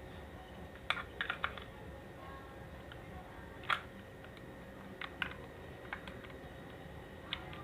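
Sharp plastic clicks and taps, a quick cluster about a second in and single ones scattered after, as the snap-fit plastic case of a cordless drill battery pack is pried open at its clips.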